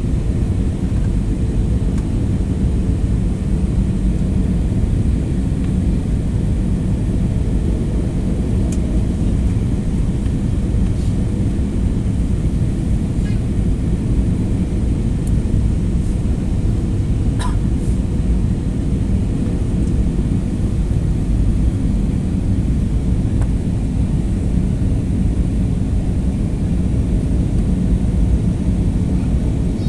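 Steady drone of an airliner in flight heard from inside the passenger cabin: engine and airflow noise, strongest in the low range, with a couple of faint brief ticks around the middle.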